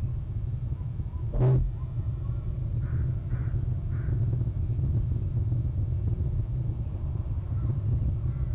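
Steady low rumble on an outdoor webcam microphone, with one sharp thump about a second and a half in, followed by three short faint bird calls about half a second apart.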